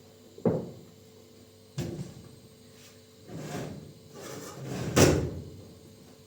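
A series of household knocks and thumps: a sharp knock about half a second in, another just under two seconds in, a short scraping or rustling stretch, then the loudest thump about five seconds in.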